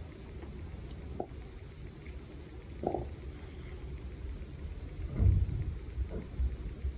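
A steady low rumble with a few short faint sounds, the loudest a deep thud about five seconds in.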